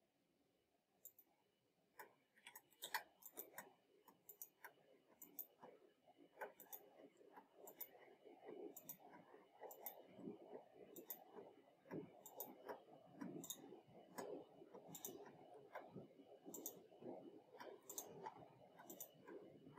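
Faint computer mouse clicks, irregular, about one or two a second, as circles are placed one after another in a CAD drawing. A faint low background noise rises from about eight seconds in.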